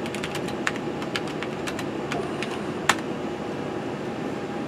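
Keystrokes on a computer keyboard as a short DOS command is typed: a quick run of clicks, ending in one harder key press about three seconds in, over a steady background hum.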